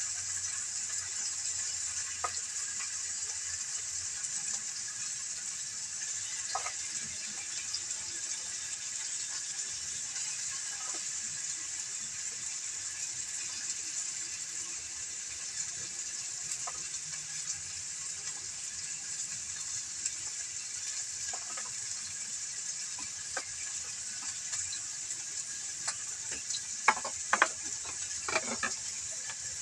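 Oil sizzling steadily in a wok on a wood fire, with a few sharp clicks near the end.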